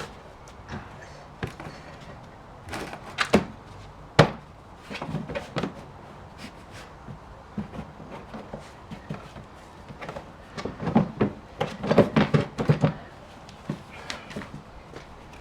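Irregular knocks and clatters of parts and tools being handled on a disassembled chipper-shredder, with a busier run of rattling knocks about eleven to thirteen seconds in.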